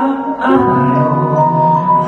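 Music with held melody notes; a lower line comes in about half a second in.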